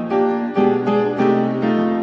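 Background instrumental music: a melody of short plucked or struck notes changing several times a second, over sustained chords.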